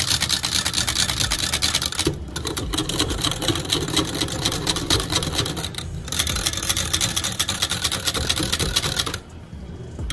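Wire whisk beating liquid in a glass measuring cup: a fast, even rattle of the metal wires clicking against the glass. It pauses briefly about two and six seconds in and stops about a second before the end.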